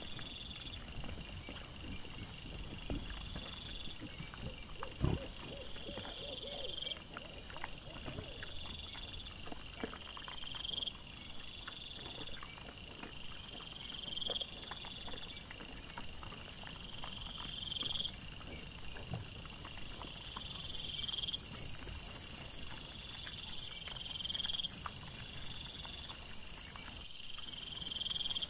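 Night insects chirping in a steady repeating pattern, over scattered rustles and knocks from wild boar and their piglets rooting through dry grass and leaf litter; one louder knock about five seconds in.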